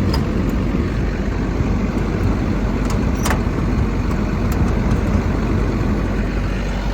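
XCMG XE210CU excavator's Cummins diesel engine running steadily, with a faint sharp tick about three seconds in.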